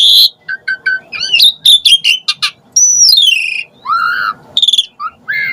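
Pied starling (jalak suren) singing a varied, loud phrase: quick chirps and short whistled notes, a long whistle gliding down in pitch about three seconds in, then a lower whistled note.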